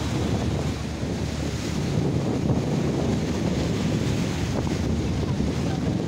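Wind rushing over the microphone, over the steady low rumble and water wash of a moving river boat.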